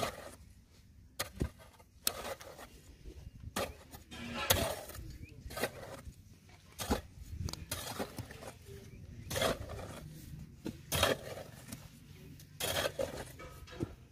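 Hand work on a submersible pump's flat cable joint: irregular short rustles, scrapes and clicks, roughly one every second or so.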